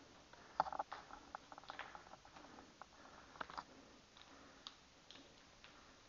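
Footsteps on a gritty concrete floor: faint, scattered scuffs and crunchy clicks, bunched together in the first couple of seconds, then a few isolated ticks.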